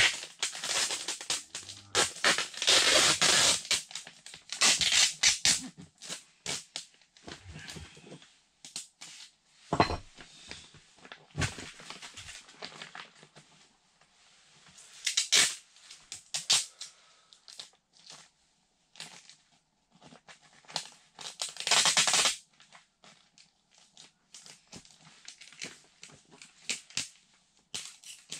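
Polyethylene vapor-barrier sheeting crinkling as it is handled, with intermittent tearing sounds. The loudest bursts come about two to four seconds in, about fifteen seconds in and about twenty-two seconds in.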